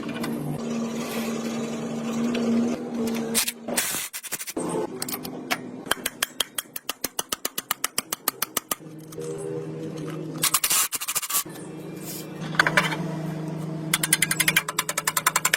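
Workshop tool work: runs of rapid, evenly spaced clicks, about five a second, over a steady low hum, with a few short louder clatters.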